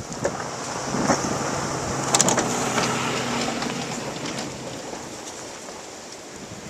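Snow plow on a Ford F150 pickup pushing and scraping snow, a noisy rushing rumble over the truck's engine hum that builds over the first two seconds. A brief clattering rattle comes about two seconds in, and the noise eases off after that.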